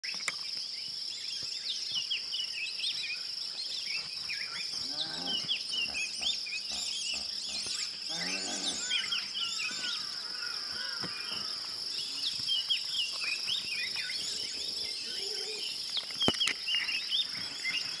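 Dawn chorus: many birds chirping and whistling over a steady high insect drone. Two deeper, drawn-out calls from another animal come about five and eight and a half seconds in, and there is a sharp click near the end.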